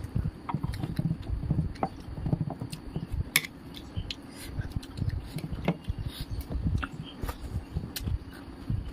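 Close-up eating sounds: chewing with irregular low mouth noises and scattered sharp clicks, along with fingers mixing rice on a metal plate.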